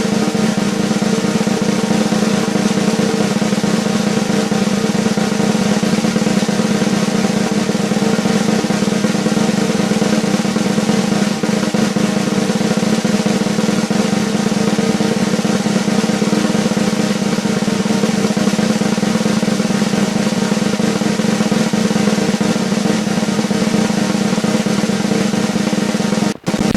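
Drum roll played continuously at an even level, with a momentary break near the end.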